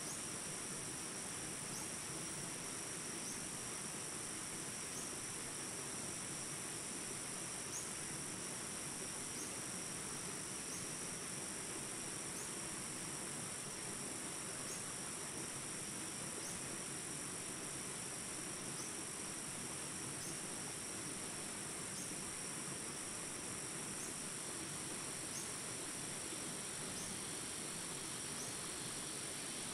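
Steady high-pitched insect chorus, with a faint chirp repeating every second or two.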